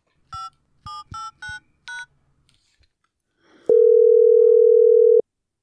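Five quick telephone keypad dialing beeps (DTMF tones) as a number is entered on a smartphone. After a short pause, one long steady ringback tone of about a second and a half: the call ringing through at the other end.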